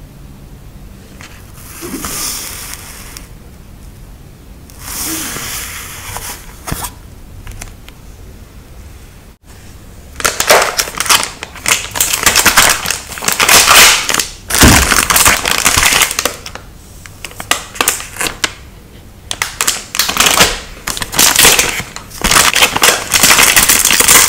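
Close-miked handling of stickers and journal paper: two soft rustles, then, after a cut about nine seconds in, loud dense crinkling and crackling with many quick clicks.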